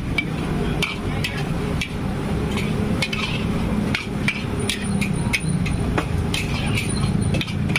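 A metal spatula scraping and clanking against a steel wok as vegetables are stir-fried, with sharp strikes at about two a second. Under the strikes are a steady sizzle and a low rumble.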